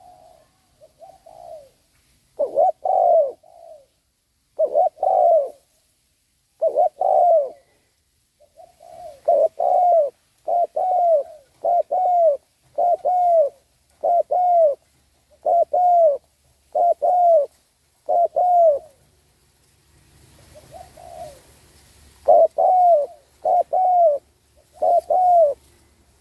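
Spotted dove cooing: a long run of short, repeated coo notes, about one a second, with a brief pause about three-quarters of the way through before the notes resume.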